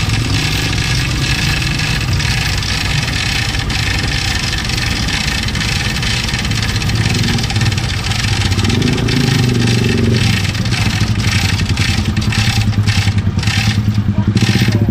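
Tow truck engine running under load while it lifts a car out of the water, revving up and back down about halfway through and running harder with a fast, even throb near the end.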